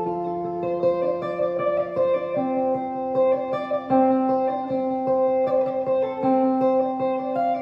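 Background music on guitar: plucked notes ringing together in a slow, steady melody.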